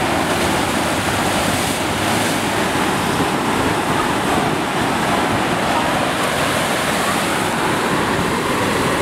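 Steady, loud rush of water from a FlowRider sheet-wave machine: a pumped sheet of water pouring continuously up the ride's sloped surface.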